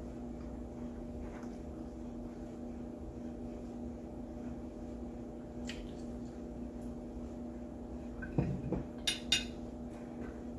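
Eating at a table: a fork or knife clinking against a plate in a short cluster of sharp clicks near the end, with one earlier click, over a steady low hum.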